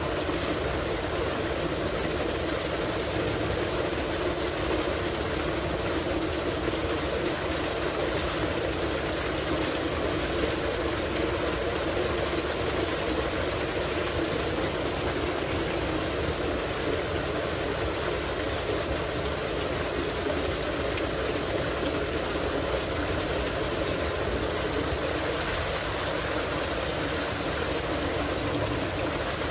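Tubewell water gushing from its outlet pipe and splashing into a concrete tank, a steady rush with a constant pump drone underneath.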